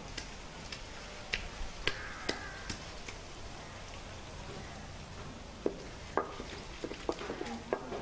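Cylindrical stone roller crushing and grinding pieces of aloe vera leaf on a flat grinding stone: a faint scraping with scattered light knocks and clicks.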